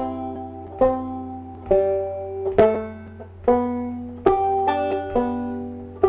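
Open-back five-string banjo playing a slow, unornamented melody in two-finger thumb-lead picking: single plucked notes about one a second with lighter notes between, each ringing out and fading.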